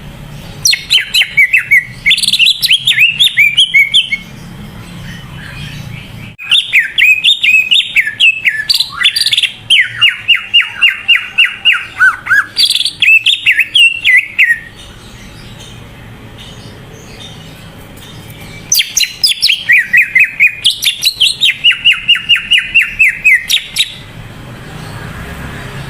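Cucak ijo (green leafbird) singing in full, vigorous song: three long bouts of rapid, sliding chattering notes and fast trills, with short pauses between them.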